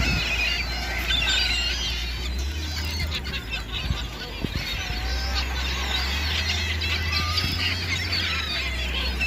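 A flock of gulls calling, many squealing cries overlapping at once, over a steady low rumble.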